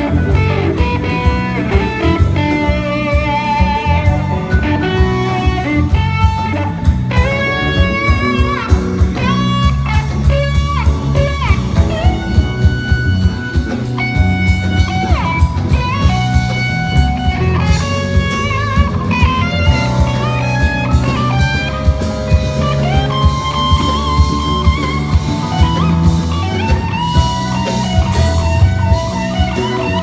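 Live rock band playing an instrumental passage: an electric guitar lead with held and bent notes over a steady drum-kit beat, bass and keyboards.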